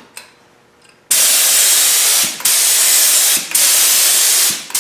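Air-powered gravity-feed spray gun spraying paint: a loud, steady hiss of compressed air and atomised paint starting about a second in, in several passes with the trigger let off briefly between them.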